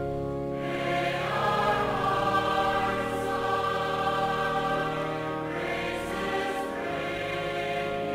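Mixed choir of men's and women's voices singing held chords, swelling louder about a second in and again around six seconds.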